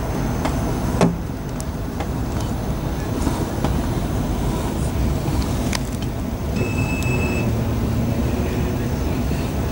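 Passenger train interior noise while running: a steady low rumble with a few sharp clicks, and a brief high beep about seven seconds in.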